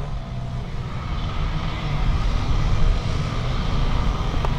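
Off-road motorcycle engines running at low speed and being blipped as riders pick through a tight coned dirt course; the engine noise grows louder about two seconds in.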